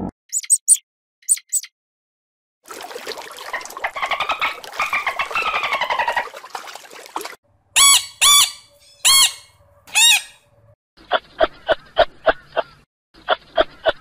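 Blue-and-gold macaw squawking: four loud, harsh calls in a row about eight seconds in. Before them come a few short high chirps and several seconds of chattering, and near the end two quick runs of short repeated calls.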